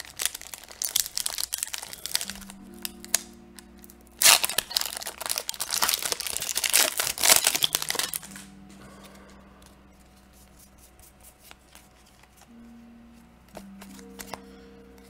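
Plastic foil wrapper of a trading-card booster pack crinkling and tearing as the pack is opened, in dense bursts over the first eight seconds, then only faint handling clicks. Soft background music with long held notes runs underneath.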